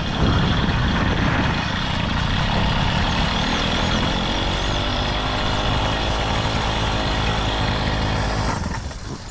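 Small engine of a motorized bicycle running as it is ridden over wet dirt and grass. The engine noise drops away near the end.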